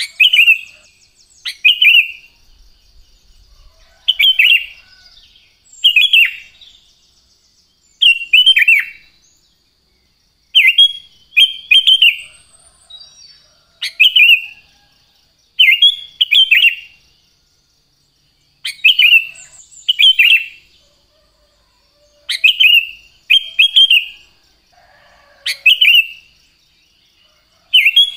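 Sooty-headed bulbul (kutilang) singing: short, bright whistled phrases, mostly in pairs, repeated about every two seconds, over a faint steady high tone.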